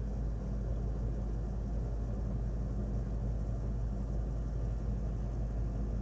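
1993 Janitrol 3.5-ton heat pump running in cooling mode: a steady low hum from the outdoor unit's Bristol reciprocating compressor and condenser fan, heard through a window.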